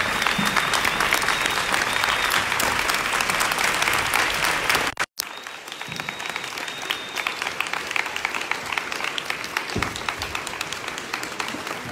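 Audience applauding with steady, dense clapping. The sound drops out for an instant about five seconds in, then the clapping carries on somewhat quieter.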